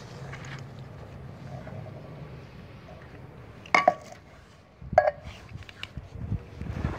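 Two sharp metallic clinks a little over a second apart, each with a short ring, from a cat-food tin can being knocked and handled, over a low steady hum.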